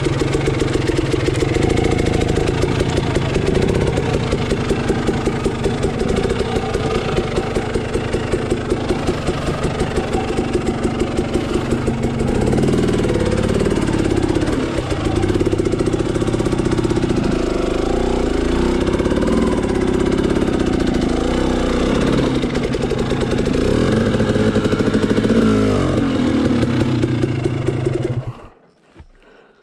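Dirt bike engine running at low speed while the bike picks its way up a rocky, rutted gully, with the throttle rising and falling again and again. The engine sound cuts off abruptly near the end.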